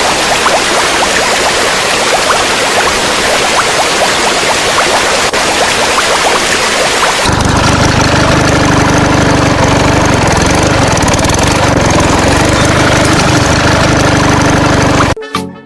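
A steady hiss with scattered small clicks, which changes abruptly about halfway through to the steady low drone of an idling engine; music starts just before the end.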